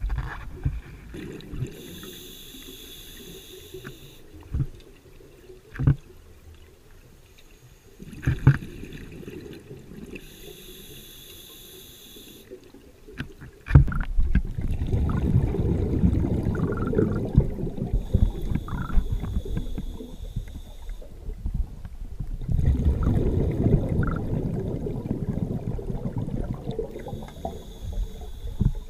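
Scuba diver breathing underwater through a regulator: four hissing inhales about eight seconds apart, and low bubbling exhales that grow much louder from about halfway through.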